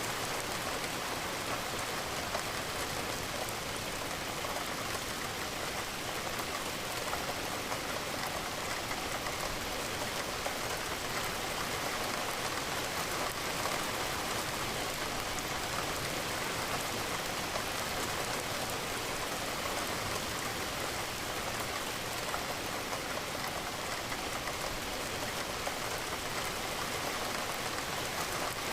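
Steady rain, raindrops pattering against a window pane, unchanging throughout.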